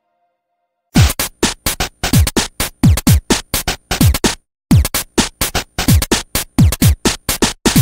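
Electronic background music with a drum-machine beat of deep, falling-pitch kick drums and sharp clicks. It starts about a second in and breaks off briefly about halfway through.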